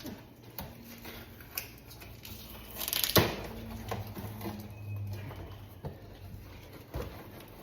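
Cardboard packaging being handled: scattered light knocks and scrapes, with a louder rustle about three seconds in, over a low steady hum.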